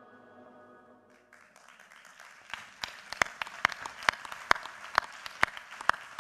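An audience applauding, building up about a second in, with a few close, sharp claps standing out about twice a second. Before that, the tail of the title music fades out.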